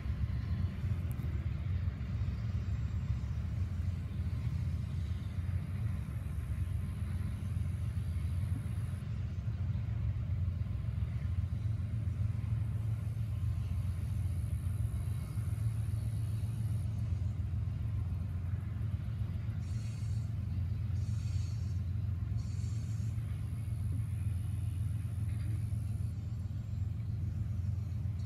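Double-stack intermodal freight train rolling past at a distance, a steady low rumble of wheels on rail with no horn sounding.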